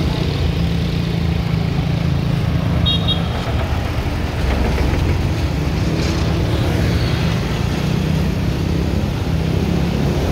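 Steady road traffic: motorcycle and car engines running as vehicles pass close by, with the rumble of tyres on the road.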